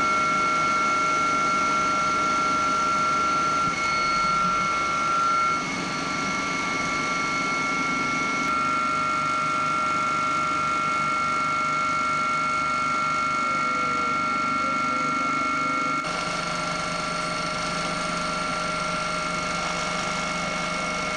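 Helicopter turbine and rotor noise, a steady high whine over a rushing hum, changing abruptly twice.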